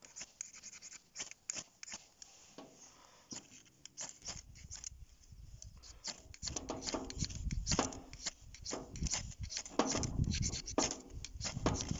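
Repeated quick scrapes of a ferro rod being struck over tinder to throw sparks and light a fire. The scrapes are sparse at first and come faster and louder from about halfway in.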